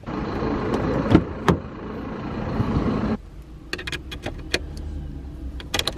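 Handling noise at a car door, with two sharp knocks about a second in as the door is worked. After a sudden drop to a quieter background, a string of small clicks and jingles from a flip key and its keys being fitted into the ignition lock.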